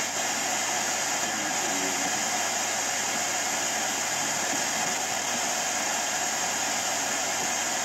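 Steady radio static hiss from a Sanyo U4S25 boombox's tuner with no clear station coming through, the weak reception typical of where it is being tried.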